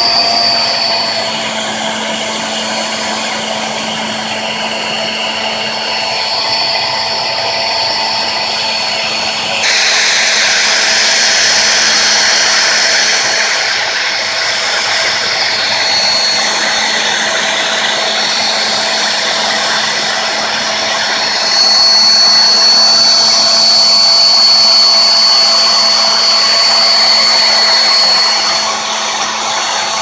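Hair dryer running steadily, an even rush of air with a high, steady motor whine. It gets louder and hissier about a third of the way in, and louder again for several seconds later on.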